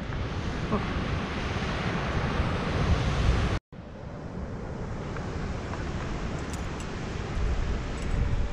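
Wind buffeting the microphone over the steady wash of ocean surf. The sound cuts out abruptly about three and a half seconds in and resumes a little quieter.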